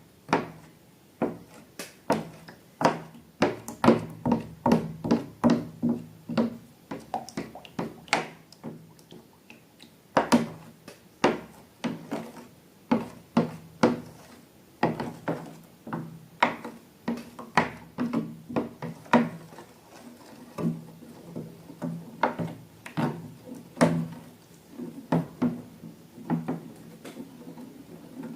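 Quick irregular taps and clicks, about one to three a second, over a faint steady low hum.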